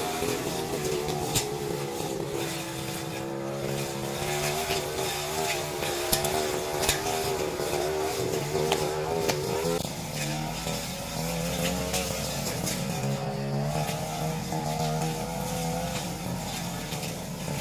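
Brush cutter's small engine running under load as it slashes undergrowth, its pitch sagging and picking up again, with scattered sharp clicks.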